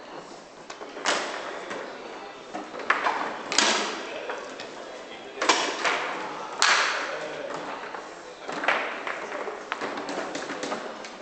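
Foosball table in play: sharp knocks of the ball being struck by the figures and hitting the table, and rods knocking against the table. There are four loud knocks and several lighter ones, each ringing briefly in a large hall.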